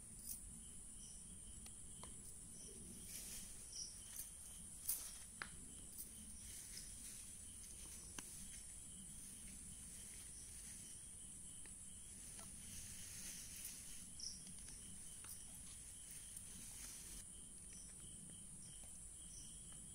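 Insects in the undergrowth: a steady high-pitched drone with a quieter repeating chirp. It is broken by a few short rustles and clicks from the plants and plastic bag as mushrooms are picked, the loudest about five seconds in.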